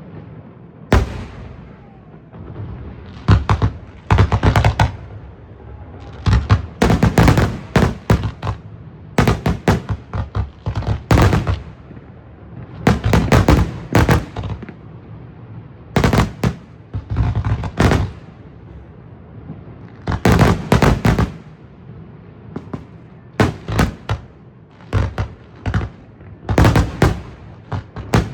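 Fireworks show: aerial fireworks bursting in rapid clusters of loud bangs, a new volley every second or two.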